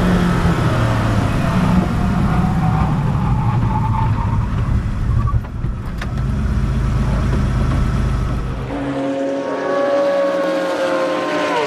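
A loud, deep car engine whose pitch falls over the first few seconds. About nine seconds in it cuts to a different, higher-pitched race car engine.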